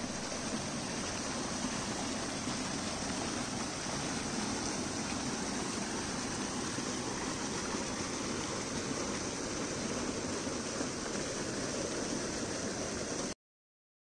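Small mountain waterfall and stream splashing over rocks: a steady rush of water that cuts off suddenly near the end.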